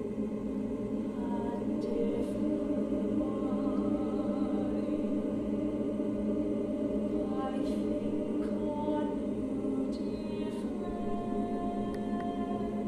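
A woman's solo voice singing short phrases and, near the end, one long held note, over a dense, steady electronic drone in a contemporary piece for voice and electronics.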